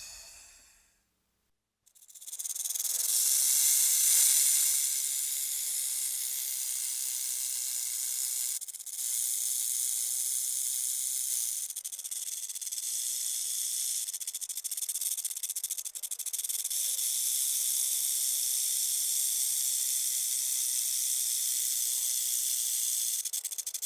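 Snake hissing: a long, steady, high hiss that starts about two seconds in after a brief silence, with a short break about nine seconds in.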